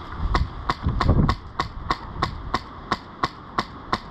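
Airsoft gun firing a steady string of about a dozen single shots, roughly three a second, each a sharp crack. Gusty wind rumbles on the microphone underneath, swelling about a second in.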